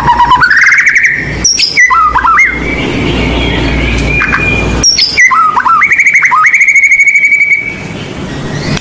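White-rumped shama (murai batu) singing a varied song of clear whistled phrases that rise and fall, broken by quick trills and a fast run of high repeated notes. A low background rumble lies under the first half.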